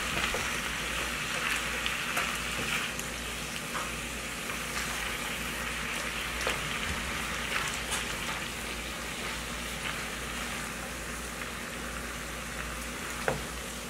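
Chicken strips, bell peppers and onions sizzling steadily in a frying pan as a silicone spatula stirs them, with a few soft taps of the spatula against the pan.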